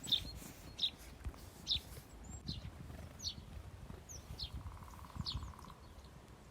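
A small songbird calling repeatedly with short, high, downward-sweeping chirps, about one a second.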